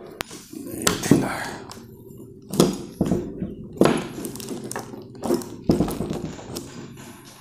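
Handling noise from a smartphone scope-camera adapter having its clamp knobs tightened: several sharp plastic knocks and clicks, with plastic wrap rustling between them.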